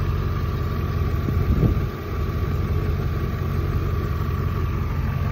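BMW E39 M5's 4.9-litre S62 V8 idling steadily, heard from over the open engine bay, with a brief thump about a second and a half in.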